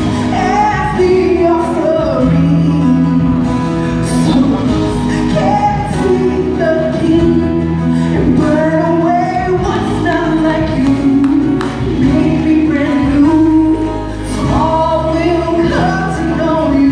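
Live gospel worship song: a woman leads the singing with a group of backing singers, over band accompaniment with sustained bass notes.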